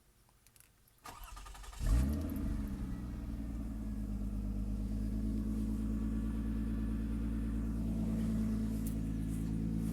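2003 Lexus ES300's 3.0-litre V6 cranked by the starter, catching about two seconds in with a brief rev, then settling into a steady idle.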